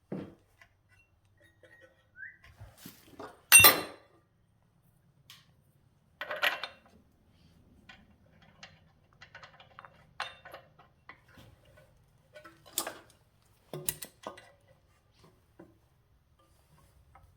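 Scattered metallic clinks and knocks of metal parts and tools being handled and set down on a workbench. The loudest clink comes about three and a half seconds in, with a few more spread through the rest.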